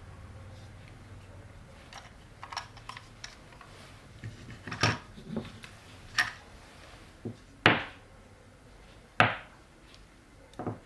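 A series of sharp clacks and knocks from hard objects being handled and set down, with about five louder ones in the second half, each ringing briefly.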